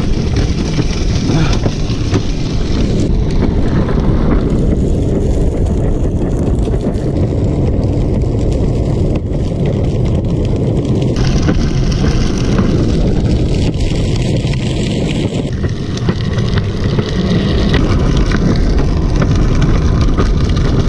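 Wind buffeting the microphone together with the rumble of a drift trike's wheels rolling along a concrete sidewalk, a loud steady noise.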